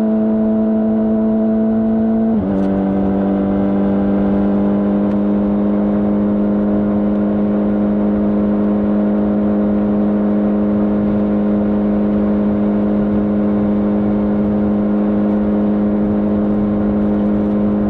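Honda CBR600RR inline-four engine with stock exhaust running at steady cruising revs under way, with wind rush on the microphone. The engine note drops slightly about two and a half seconds in, then holds steady.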